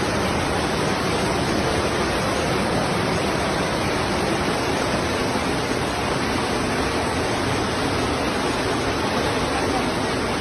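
Steady rush of floodwater, an even noise with no breaks.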